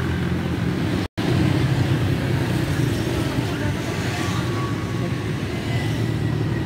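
Steady low rumble of road traffic, with the sound cutting out for a split second about a second in.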